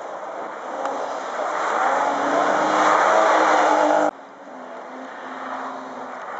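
Rally car engine coming along the stage, growing louder to a peak about three to four seconds in, then cutting off suddenly; after the cut a car engine goes on more faintly.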